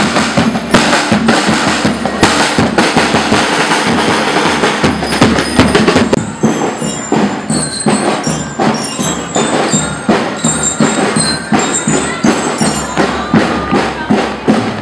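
Marching-band drumline playing a fast, steady march beat on snare drums and bass drums. About six seconds in, the drumming becomes lighter and sparser, with short high ringing notes over it.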